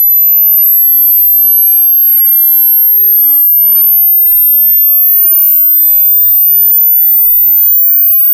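Pure sine test tone from a hearing-test frequency sweep, held at a constant level and rising slowly from about 13 kHz to about 15 kHz. This is the high end of the sweep, near the upper limit of hearing for many adults.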